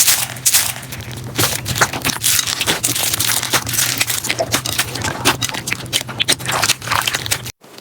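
Crunchy slime being squeezed and pressed, giving a dense run of crackling and popping with a low steady hum underneath. The sound drops out briefly near the end.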